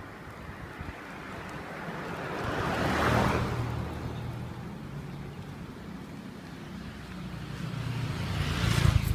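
Street traffic passing close. A car goes by about three seconds in, then a small motorbike's engine grows louder as it comes up and passes near the end.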